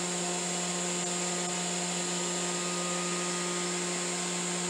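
The 400-watt, 48-volt DC spindle motor of a 3040 CNC router running steadily at near full speed under MACH3 control, giving a constant hum with a high whine above it.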